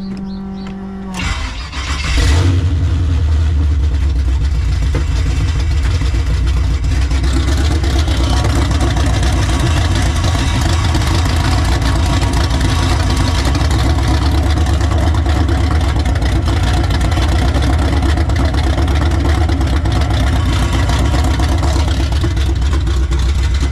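Chevrolet Monte Carlo engine cranking briefly, then catching about two seconds in and running steadily. This is a start on a fuel pump newly wired to the ignition fuse.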